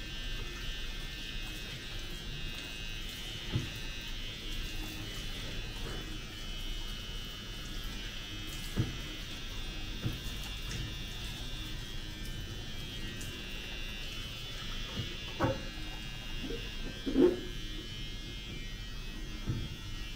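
Steady buzz of a small electric motor running, with a few scattered short knocks; the loudest knock comes about seventeen seconds in.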